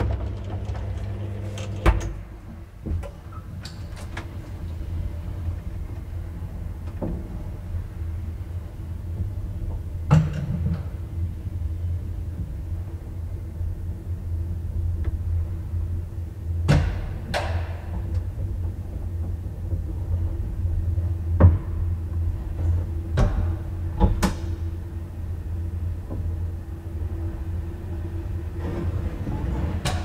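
Elevator car travelling: a steady low hum of the drive throughout, broken by a handful of sharp clunks and clicks as the car runs in the shaft.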